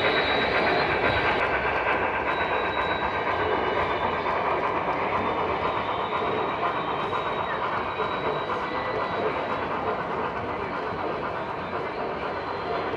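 Model freight train running on metal track, a steady rumble and clatter of small metal wheels over the rails with a faint high steady tone running through it.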